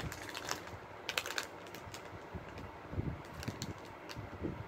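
Plastic snack wrapper crinkling and crackling in the hands as it is handled, in scattered sharp clicks.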